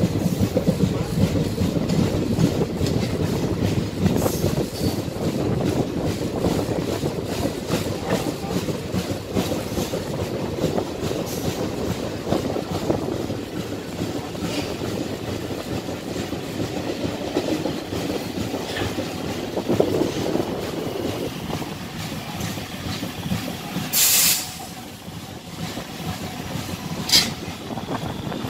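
Electric local (EMU) train running past close by, its wheels clattering over the rail joints in a steady rumble. A short sharp hiss sounds late on, and another brief one just before the end.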